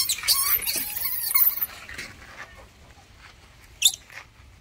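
Baby monkey screeching in high-pitched, wavering squeals for about a second and a half, then one short sharp squeak near the end.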